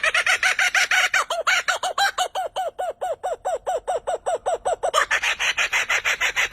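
A bird calling in a rapid, even series of short clucking notes, about six a second, each with a quick rise and fall in pitch.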